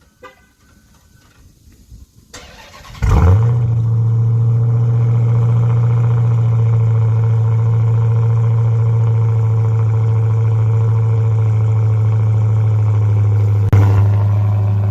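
Hellcat's supercharged 6.2-litre HEMI V8 starting about three seconds in, flaring loudly on start-up and then settling into a steady, deep idle through its exhaust. A brief surge in level near the end.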